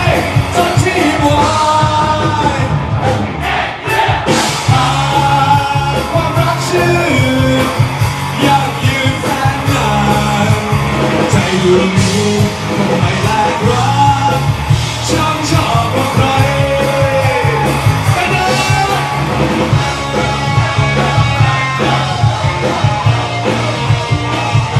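Live rock band playing: a male singer singing loudly, at times close to yelling, into a microphone over electric guitar and drums.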